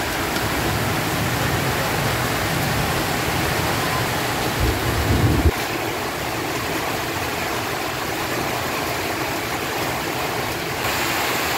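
Broth boiling in a wok over a wood fire: a steady hiss, with a brief low rumble about five seconds in.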